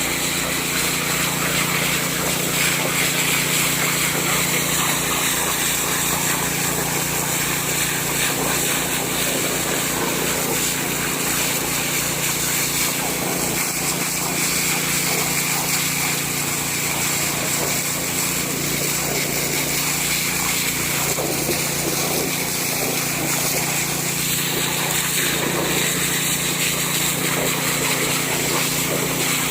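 Small petrol engine of a portable water pump (an 'alkon' pump) running steadily at constant speed, with a continuous hiss over its hum.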